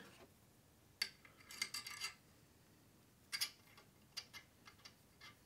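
Metal stabilizer fittings being handled and screwed onto an Olympic recurve bow's riser: faint, scattered light clicks and rubs, one about a second in, a small cluster just after, and a string of ticks in the second half.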